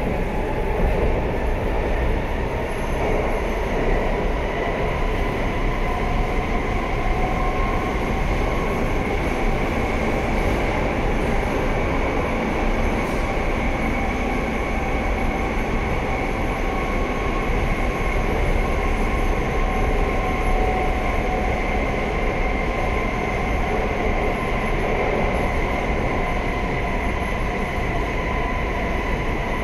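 Interior running noise of a Madrid Metro 5000-series (4th subseries, CAF) car travelling at speed through a tunnel: a steady rumble of wheels on rail, with a steady high whine on top.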